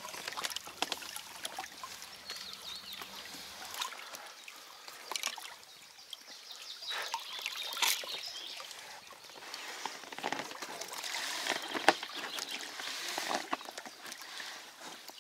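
River water splashing and trickling, with scattered knocks and scrapes, as inflatable PVC kayaks are hauled over a fallen tree blocking the river.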